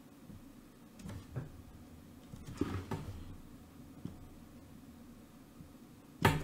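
Faint room tone with a few soft knocks and rustles about one to three seconds in and a light click a little later, then a short, much louder noise just before the end.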